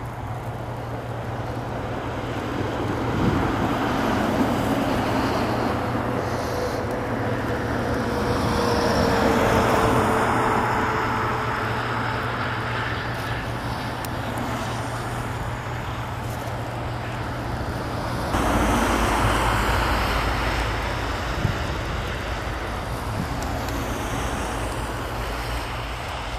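Traffic passing on a snowy highway, the tyre and engine noise of each vehicle swelling and fading, with wind on the microphone.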